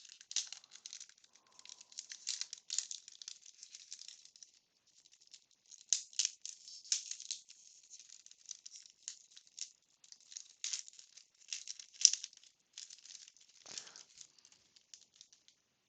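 Wax-paper baseball card pack being opened and its cards handled: dry crackling and rustling in irregular clusters, with a short pause about five seconds in.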